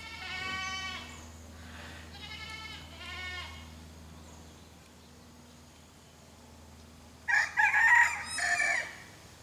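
A goat bleats twice, with a quavering pitch, in the first few seconds. Then a rooster crows loudly near the end.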